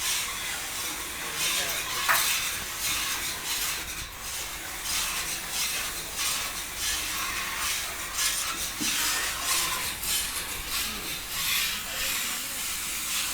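Steam hissing in an irregular, surging rush, with brief spurts coming and going.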